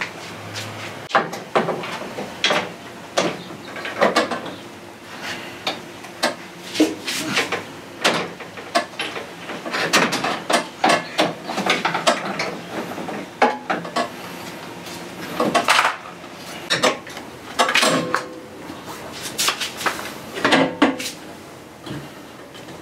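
Irregular knocks, clanks and rattles of an aluminium Koyo radiator being handled and worked into place in a car's engine bay, a few knocks ringing briefly.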